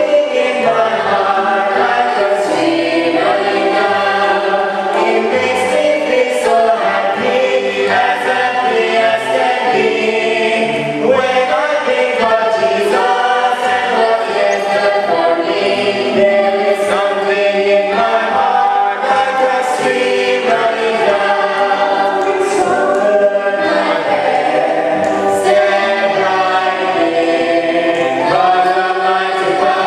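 Church choir or congregation singing a gospel hymn in several-part harmony, steady and sustained, with little or no instrumental backing.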